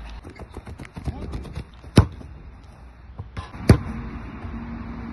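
A football kicked hard, two sharp strikes about a second and a half apart, after a run of quick light steps on artificial turf.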